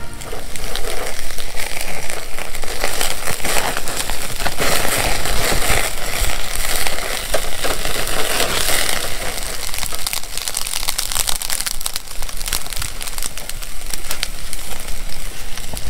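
Slices of pork neck sizzling on a wire grill over an open fire: a steady, loud sizzle packed with fine crackling pops.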